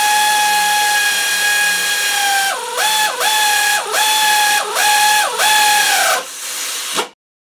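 Power drill running with a steady whine, its pitch dipping briefly five times in the second half as it loads up driving the motor mount plate bolts down, then stopping. The sound cuts off suddenly near the end.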